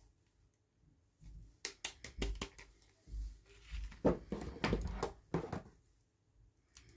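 Hands handling plastic and cardboard toy packaging: an irregular run of sharp clicks, taps and crinkles, busiest in the middle and dying away near the end.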